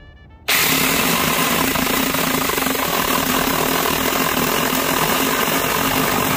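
Saker cordless mini electric chainsaw starting suddenly about half a second in, its motor running at a steady whine as the chain cuts through a wooden pallet board.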